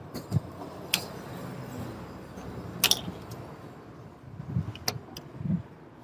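A few sharp metallic clicks and taps, spaced a second or two apart, as a screwdriver works at the exhaust-port seal in a Honda CG125's cylinder head to pry the seal out.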